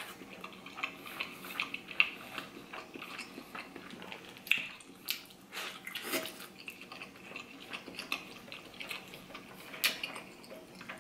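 Mouth sounds of a person biting into and chewing a giant steamed soup dumpling: irregular wet smacks and clicks of lips and soft dough, the sharpest about 2 s in and just before 10 s in.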